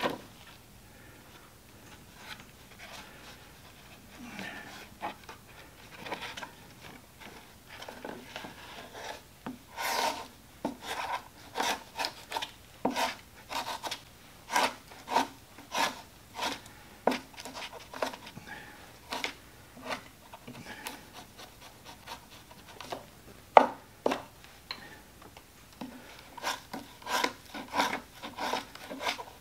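Hand tool scraping and shaving the end of a leather belt held on a wooden board: a run of short scraping strokes, about one or two a second, picking up about ten seconds in, with one sharper knock partway through.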